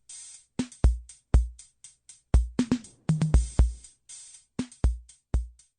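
Intro music: an electronic drum-machine beat with deep booming kicks and crisp hi-hat and snare hits.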